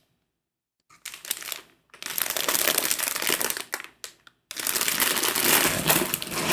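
Clear plastic bag around a fabric kit crinkling as it is handled, starting about a second in, with a short break just past the middle before louder crinkling.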